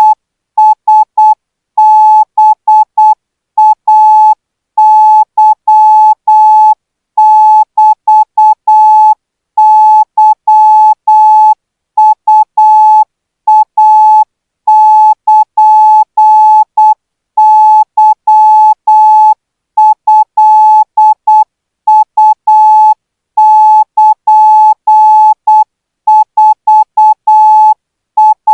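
Morse code practice tone sending Thai-code characters at about 12 words per minute: a single steady beep keyed on and off into short dots and longer dashes, in letter groups separated by short pauses.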